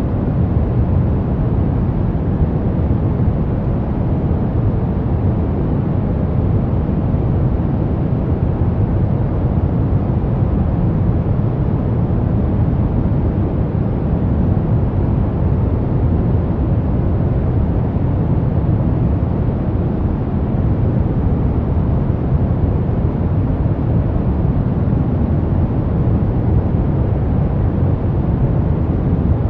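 Brown noise: a steady, unchanging noise, strongest in the low end and fading toward the higher pitches, with no tones or events.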